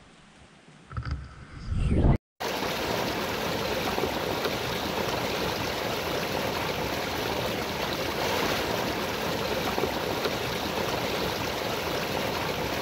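Steady rush of flowing water from a stream or waterfall, starting abruptly after a short cut about two seconds in. Before it come faint rustling and a brief burst of handling noise on the microphone.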